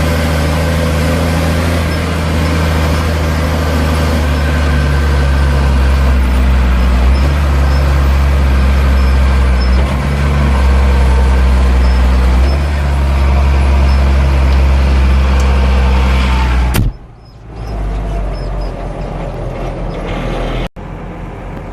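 Ford 8830 tractor's six-cylinder diesel engine running hard at a steady speed, then dropping abruptly to a quieter engine note about three-quarters of the way through.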